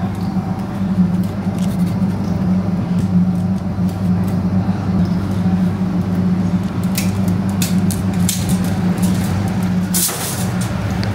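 Steady low mechanical hum, with metal kebab skewers clinking and scraping as koobideh kebabs are pulled off them onto flatbread. The sharpest clinks cluster in the second half.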